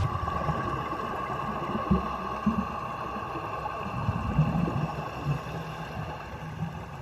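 A boat's engine running steadily, with an uneven low rumble of water and wind.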